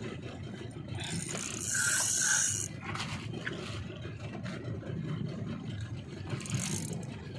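Fishing reel being worked on a hooked fish, its mechanism whirring and scraping. There is a louder rasping burst about two seconds in and another near the end, over the steady low rumble of the boat's engine.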